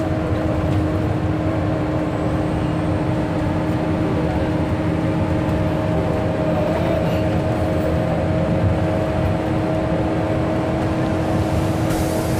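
Steady engine rumble with a constant droning hum, heard from inside a moving passenger vehicle's cabin.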